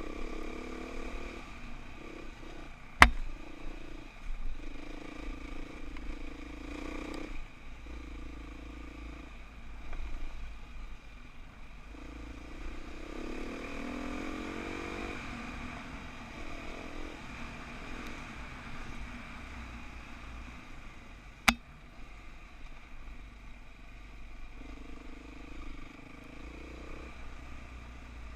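Dirt bike engine running under way, the pitch rising and falling as the throttle opens and eases off, with a longer rise about halfway through. Two sharp knocks cut through, one about three seconds in, the loudest, and one about two-thirds of the way through.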